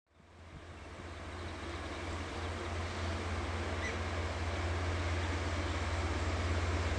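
Diesel freight locomotive approaching, its engine a steady low drone that fades in at the start and grows gradually louder.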